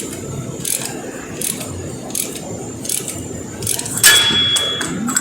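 Hand tools working under the truck: a metallic scraping stroke repeats about every three-quarters of a second, then a louder metallic clatter with a short ringing tone comes about four seconds in.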